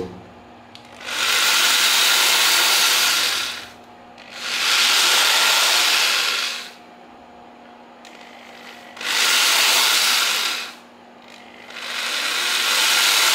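Rockwell 4150J1 3/8-inch corded electric drill running with no load in four bursts of about two seconds, each speeding up and then winding down as the trigger is pulled and let go.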